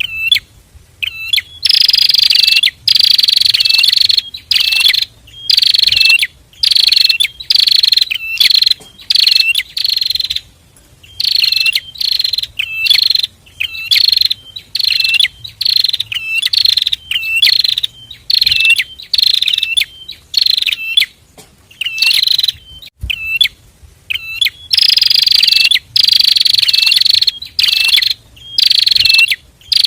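A pair of prinias (prenjak) calling loudly, in sharp buzzy chirps repeated about once a second in a long, nearly unbroken series.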